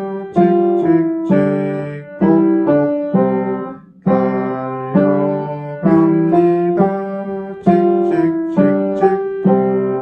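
Piano played with both hands: a simple, evenly paced children's-song melody in separate notes over a steady low accompaniment, with a short break between phrases about four seconds in.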